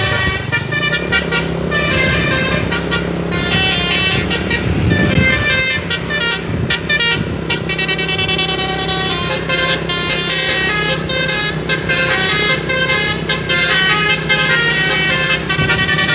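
Bus 'telolet' musical air horn playing a fast tune, several horn notes sounding together and changing pitch every fraction of a second, with some notes held longer. The bus engine runs underneath.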